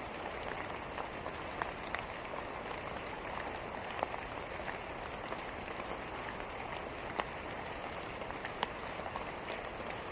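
Steady rain falling, with single drops landing in sharp ticks now and then.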